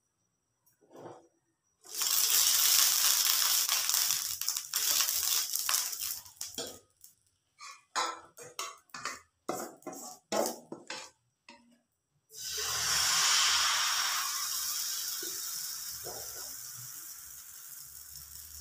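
A ladle stirring batter in a glass bowl, scraping and clinking with quick strokes. About twelve seconds in, batter hits the hot oiled pan and sizzles loudly, the sizzle slowly fading.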